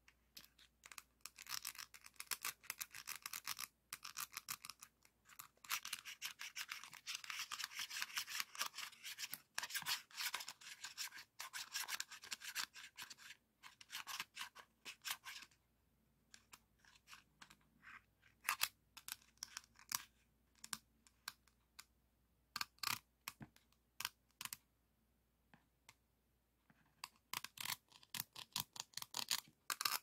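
Stacked green plastic diamond-painting trays scratched and rubbed by hand across their ridged surfaces: a dense, rapid scratching for about fifteen seconds, then sparse separate clicks and taps, then quick scratching again near the end.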